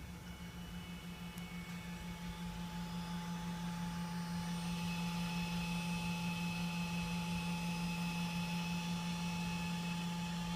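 Steady low electrical hum with faint high whining tones, growing louder about four seconds in, from a 2012 Camry Hybrid idling in electric mode with its LED low beams switched off.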